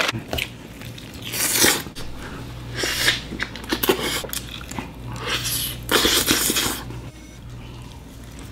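Close-up eating sounds of a man chewing and smacking on roast chicken, in several short bursts, over a low steady hum.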